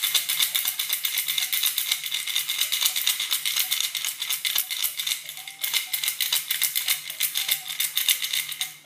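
Baby toy rattle shaken fast and without a break, a dense high rattling with a brief pause a little past halfway, stopping just before the end.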